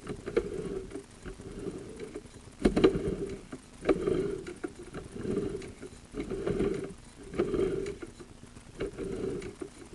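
Sewer inspection camera cable being pushed into a drain line in strokes about once a second, each push a short rubbing, clunking sound, with a couple of sharper knocks about three and four seconds in.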